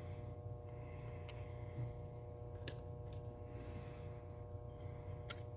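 A few sparse, light metallic clicks of a screwdriver working on the steel and brass parts of a 1938 Western Electric 5H rotary telephone dial mechanism, over a steady low hum.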